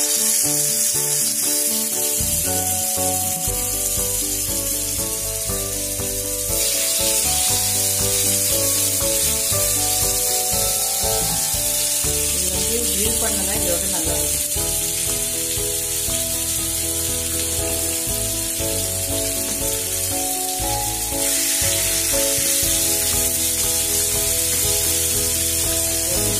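Marinated chicken pieces shallow-frying in hot oil in a nonstick pan, a steady dense sizzle that grows louder in steps about six seconds in and again about twenty seconds in.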